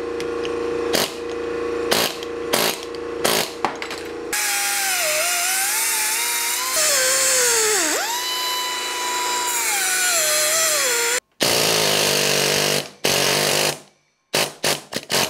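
Grinder with a cutting wheel slicing through an old differential carrier bearing to remove it. Its whine dips in pitch and recovers as the wheel loads up in the cut, stops about eleven seconds in, runs again briefly, and a few sharp taps follow near the end.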